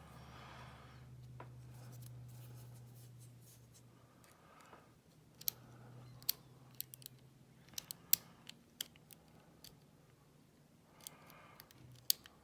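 Lock pick and tension wrench working the pins of a small five-pin Yale pin-tumbler cylinder: small sharp metallic clicks, scattered irregularly and coming thick in the second half, as the pick lifts and sets the pins.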